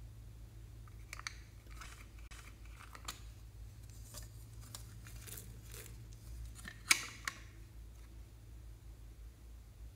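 Hinged plastic toy containers handled over a glass dish: scattered light clicks and rustles, then a sharp plastic click about seven seconds in with a smaller one just after, over a steady low hum.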